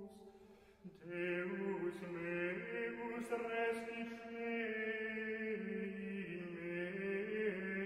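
A Latin chant sung in long held notes that step from one pitch to the next. It breaks off briefly at the start and comes back in about a second in.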